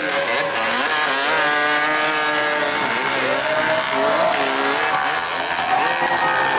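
Trail motorcycle engines revving hard, the pitch rising, holding and dropping again and again, with more than one engine heard at times.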